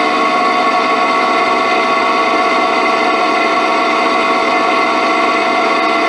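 Ball-bearing pulleys and guide rollers turning under a motor-driven round belt on a steel plate, picked up through a piezo contact element. The plate rings with a steady mechanical hum made of many held tones, one of them drifting slightly in pitch.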